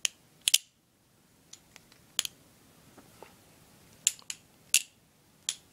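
Balisong (butterfly knife) being flipped by hand: sharp metallic clicks as the handles and latch swing around and strike, some in quick pairs, with short pauses between.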